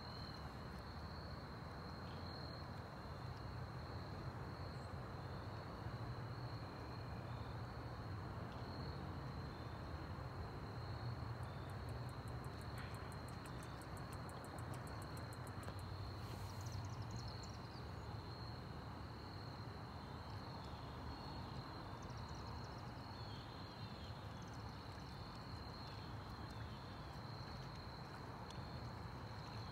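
Insects trilling outdoors: one steady high-pitched note that never breaks, over a low background rumble, with a few faint short chirps in the second half.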